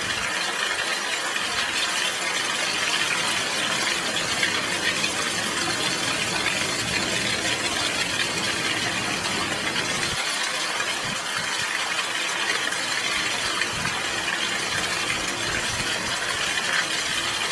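Heavy rain falling steadily, an even hiss of drops with no thunder.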